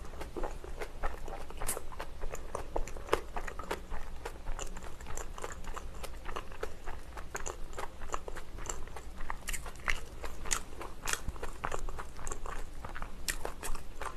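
Close-miked chewing of a spicy kimchi-filled dumpling, with many small, irregular mouth clicks and soft crunches.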